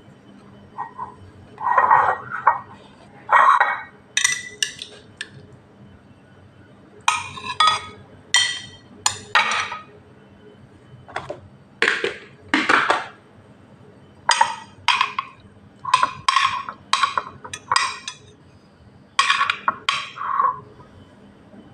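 A metal spoon scraping and clinking against glass food containers while scooping scrambled egg, in a long series of short, sharp strokes with brief pauses between them.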